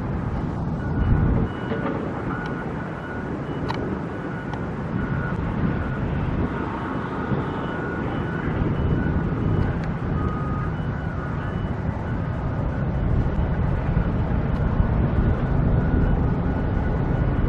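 Steady rumble of vehicles and work machinery, with faint short high tones coming and going.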